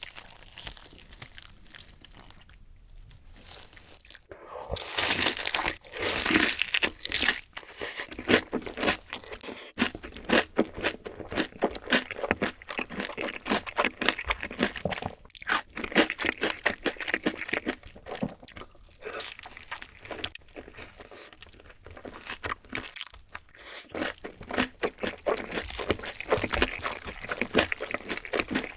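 Close-miked crunching and chewing of crispy fried food. It is quieter for the first few seconds, then becomes loud, dense crunching from about four seconds in, with bite after bite and chew after chew.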